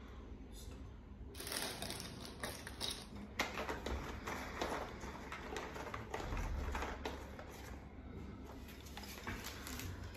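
Plastic parts of a baby piano play gym being handled and fitted together: irregular clicks, taps and rattles, starting about a second in and going on busily.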